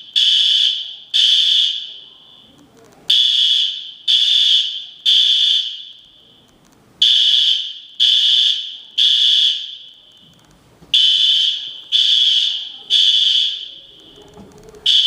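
Building fire alarm sounding in the temporal-three evacuation pattern: three high-pitched beeps about a second apart, then a pause of about a second and a half, repeating.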